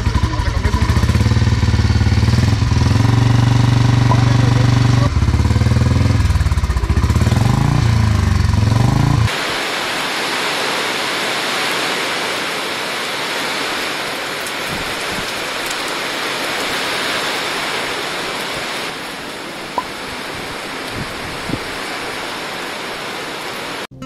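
A motorcycle engine running, its revs rising and falling, for the first nine seconds or so. It then cuts abruptly to a steady rushing noise with no low rumble, like rain or falling water.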